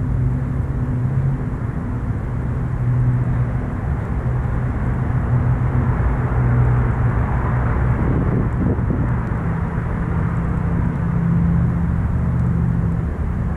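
Traffic: a steady low engine hum, with a passing vehicle's noise swelling and fading about the middle.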